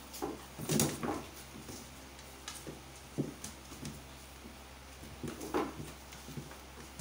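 Two small dogs play-fighting: short, irregular bursts of play growling and scuffling as they wrestle on a board floor, loudest about a second in.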